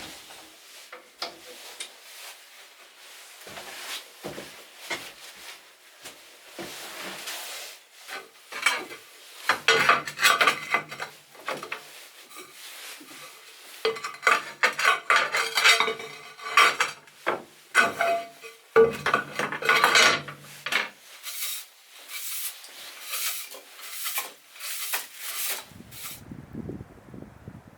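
Metal cookware and utensils clinking, knocking and scraping in an irregular clatter. Near the end come a string of sharper single knocks.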